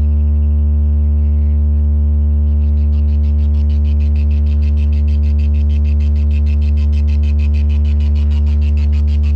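DJ sound system's bass speakers holding one steady, loud deep bass tone as a sound-check test. About two and a half seconds in, a fast high pulsing starts over it.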